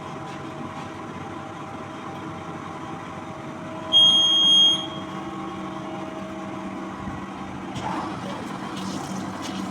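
Wire EDM machine running with a steady hum, and about four seconds in a single loud electronic beep lasting under a second, as the cut is started. Near the end a hiss and a stronger low hum come in.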